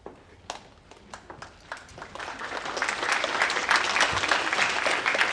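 Audience applauding: a few scattered claps at first, building to full, steady applause about halfway through.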